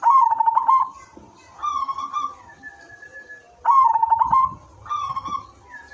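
Silver zebra dove (perkutut) cooing its song: two phrase-pairs, each opening with a rapid stuttering roll of notes and followed by a smoother, longer coo. A thin, steady whistle-like tone sounds in the gaps between phrases.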